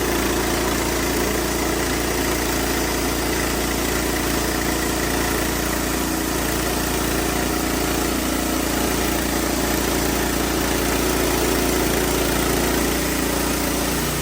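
Engine of a WoodMizer LX55 portable sawmill running steadily.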